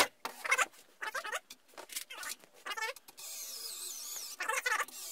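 A string of short squeaky sounds, then from about three seconds in a cordless electric screwdriver running steadily with a wavering whine.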